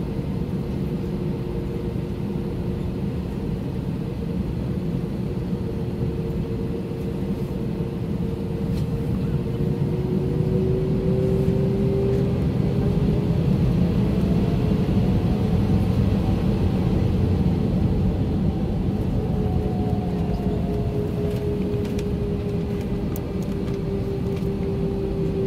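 Airliner cabin noise over the wing of an Airbus A319: a steady rumble from its IAE V2524-A5 engines with a whine on top. About ten seconds in the whine rises in pitch and the noise grows louder, then settles back down.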